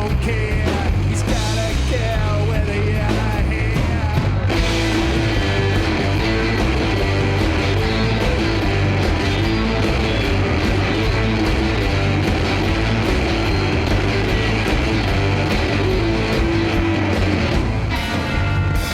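Rock music from a band demo: loud and dense with guitar. The sound thickens about four and a half seconds in.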